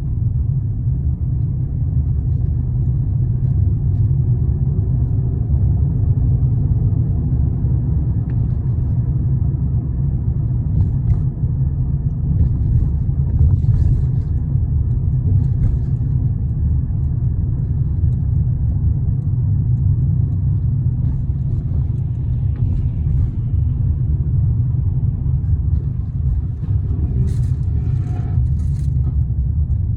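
A car in motion, heard from inside the cabin: a steady low rumble of road and engine noise, with a few faint clicks near the end.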